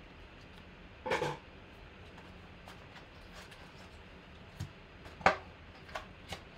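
Cardboard trading-card hobby box being opened by hand and its packs pulled out and set down on the table: a short noise about a second in, then a few light taps and knocks, the sharpest one about five seconds in.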